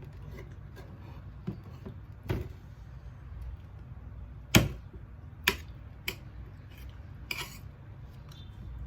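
A few sharp clicks and taps of tableware while eating a meal of rice and curry, the loudest about halfway through, over a low steady hum.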